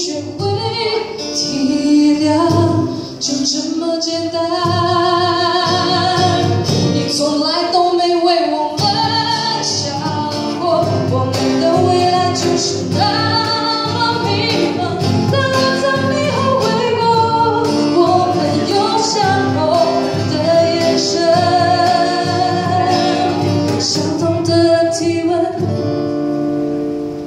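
A woman sings into a microphone, accompanied by two strummed acoustic guitars and a cajon. Near the end the voice stops and the guitars carry on more quietly.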